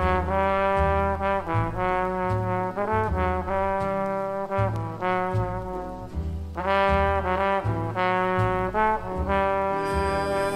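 Big-band jazz recording: a brass section plays chords in phrases over a bass line.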